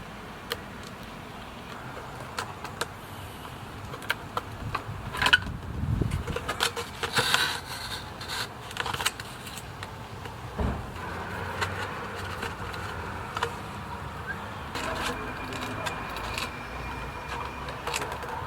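Irregular clicks, knocks and rustles of things being handled, busiest around the middle, over a steady background hum.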